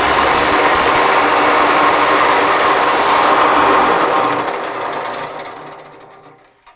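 Electric power tool motor running steadily with a whine, then winding down and fading away over the last two or three seconds.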